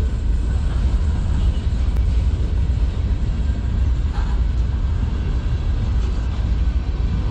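Freight cars of a manifest train rolling past on the rails: a steady, heavy rumble of steel wheels on track.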